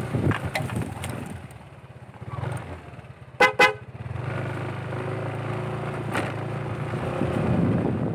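Motorcycle engine running, with two short horn beeps about three and a half seconds in.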